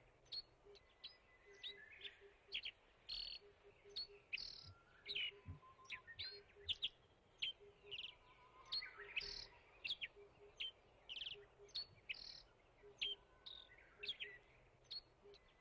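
Wild birds chirping: a quick succession of short, high chirps and twitters, several each second, faint.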